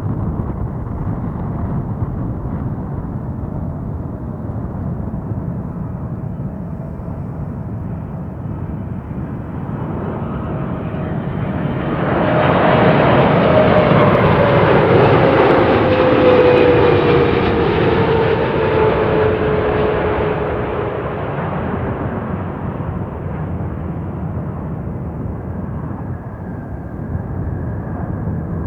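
Boeing 777-300ER's twin GE90 turbofans on a landing arrival: a steady jet rumble that swells about twelve seconds in as the airliner passes close, with an engine whine falling in pitch, then fades away.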